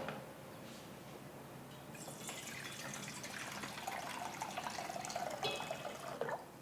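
Water being poured into a vessel: a thin stream of pouring that starts about two seconds in and runs for roughly four seconds.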